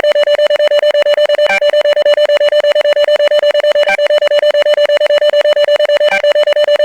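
Synthesized emergency-alert alarm tone: one steady pitch with overtones, chopped into rapid beeps about nine times a second, with a short extra blip three times, every couple of seconds.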